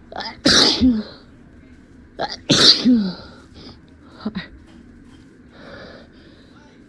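Two big human sneezes about two seconds apart, induced by pepper. Each starts with a quick catching inhale and ends in a voiced tail that falls in pitch, and short breaths follow.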